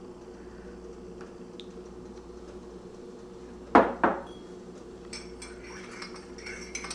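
Two sharp clinks of china about four seconds in, a third of a second apart. From about five seconds in, a metal spoon ticks lightly and quickly against the inside of a ceramic mug as it stirs in cream, over a faint steady hum.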